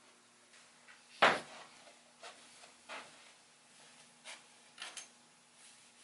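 One sharp, loud wooden knock about a second in, followed by several lighter knocks and clatters at uneven intervals.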